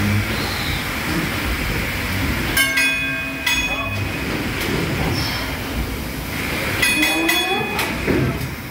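PS Waverley's three-cylinder triple-expansion steam engine running steadily with a rhythmic mechanical sound as its pistons turn the paddle wheels. Twice, about three and seven seconds in, a brief high tone of several pitches sounds over it.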